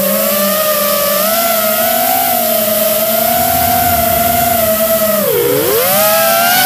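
Model aircraft motor and propeller running with a steady whine. Its pitch wavers with the throttle, drops sharply about five seconds in, then climbs back up.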